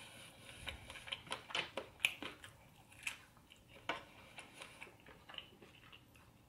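A person chewing food, mouth sounds as an irregular run of soft clicks and smacks, thickest in the first two seconds or so and sparser toward the end.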